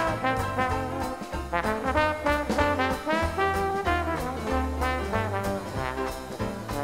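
Background jazz music with brass horns over bass notes and a steady beat.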